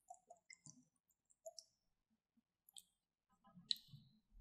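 Faint scattered clicks and small wet pops from a glass dish of green slime mixture as liquid is poured in from a small plastic bottle. About three and a half seconds in, a silicone spatula starts stirring the mixture, with a denser run of soft squelches and one sharper click.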